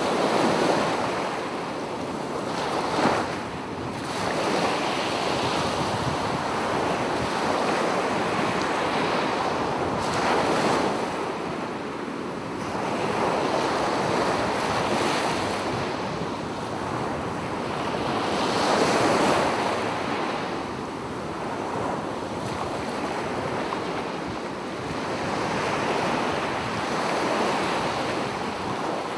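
Sea waves washing onto a sandy beach, a continuous surf noise that swells and eases every few seconds, with wind blowing across the microphone.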